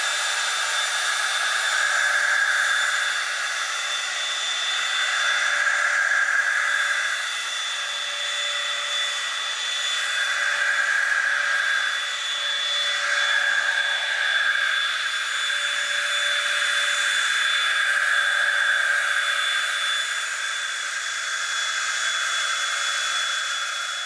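RC jet boat's 64 mm six-blade electric ducted fan, driven by a 4500KV brushless motor, running as a steady high whine over a rushing air hiss. It swells and eases a little every few seconds as the throttle changes.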